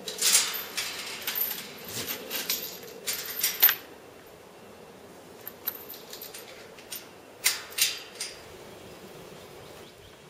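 Metal hardware on a galvanized tube farm gate clinking and rattling as the gate is fastened at its post: irregular clusters of sharp metallic clicks through the first few seconds, then a few more about eight seconds in.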